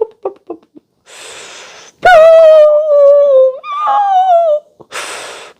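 A high voice making a non-word vocal sound: a breathy hiss, then a long drawn-out wavering tone of about two and a half seconds that slides down, jumps up and falls again, then another breathy hiss.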